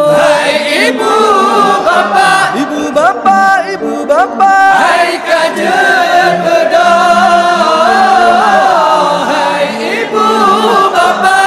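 Sung sahur wake-up call: a voice sings a melodious, ornamented melody that glides and wavers, with musical backing.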